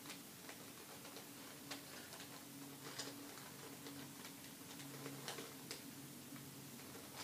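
Faint, irregular plastic clicks of a QJ 3x3 Rubik's cube's layers being turned, spaced a second or so apart, with the cube worked by teeth instead of fingers.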